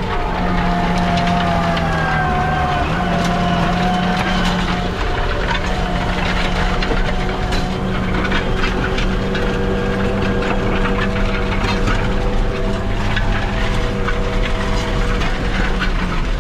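2004 JCB Fastrac 3220 tractor running under way, heard inside the cab: a steady engine drone with a wavering whine over it and frequent rattles and clicks.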